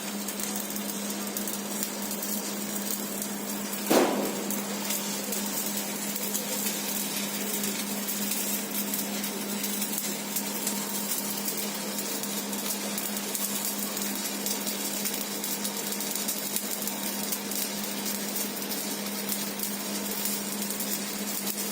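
Stick-welding arc of a 4 mm MAGMAWELD EM-165 electrode crackling and hissing steadily while laying the fill pass on steel pipe, over a steady low hum. A single sharp knock about four seconds in.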